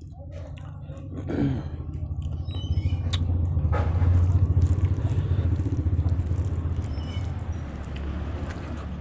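Close-up chewing and eating sounds, with scattered small clicks and smacks, over a low rumble that swells to its loudest about four seconds in and then slowly fades.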